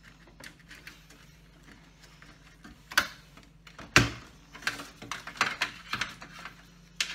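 Scattered clicks and knocks of hands handling wiring and plastic connectors against an LCD TV's sheet-metal chassis: two sharper knocks about three and four seconds in, then a run of lighter clicks.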